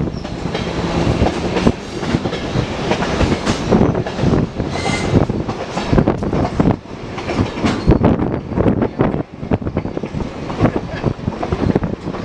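A moving train heard from aboard: wheels clattering over the rails and the cars rattling in an irregular run of knocks over a steady rumble, with a short high squeal about five seconds in.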